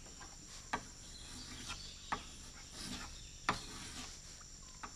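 Crickets chirring steadily at a high pitch, with about half a dozen sharp taps at irregular intervals.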